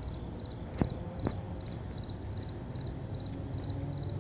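Cricket chirping steadily in short high chirps, about two to three a second, over a low rumble. Two sharp clicks come about a second in.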